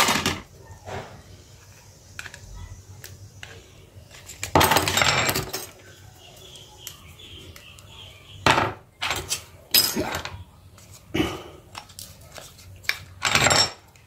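Handling noise of plastic smartphone back covers, a battery and a metal pry tool clacking and scraping against each other and a wooden table: scattered clicks and knocks, with a longer clattering rattle about four and a half seconds in and shorter clatters near nine, ten, eleven and thirteen seconds.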